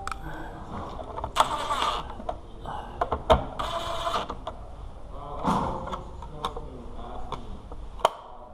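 Clicks and short bursts of mechanical clatter, three louder bursts among scattered sharp clicks, from hand work on a ceiling subwoofer's panel and screws.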